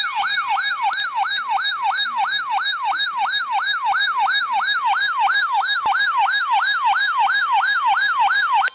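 Electronic siren-style alert tone, a fast yelp that sweeps up and down about three times a second and stops abruptly near the end, sounded as the attention signal before a severe thunderstorm warning.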